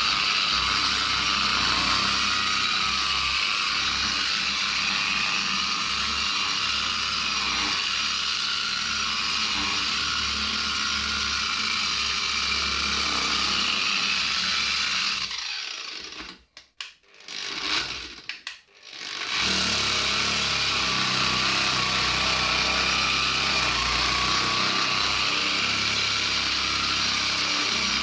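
Electric angle grinder with a polishing pad running steadily, buffing a boat hull. About halfway through it stops for a few seconds, gives a short blip, then starts up and runs again.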